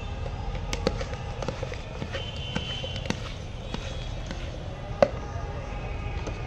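Metal spoon knocking against a plastic mug as cut fruit is mixed in it: a run of irregular light clicks, with one sharper knock about five seconds in. A steady low rumble runs underneath.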